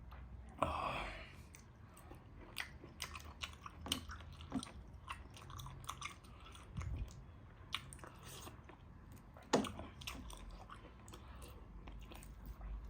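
A person chewing and biting mouthfuls of soft food, millet dhido and rice with buffalo meat curry, with wet mouth clicks and lip smacks. Two sharper, louder smacks come just after the start and about ten seconds in.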